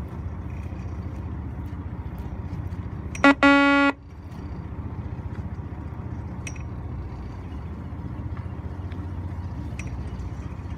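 Fishing boat's engine running with a steady low rumble. About three seconds in, a loud horn-like tone sounds twice, once briefly and then for about half a second.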